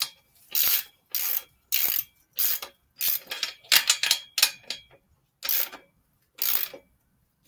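Ratchet wrench clicking through about a dozen short back-strokes, roughly one every half second and slowing near the end, as a bolt on the bike's cranks is worked.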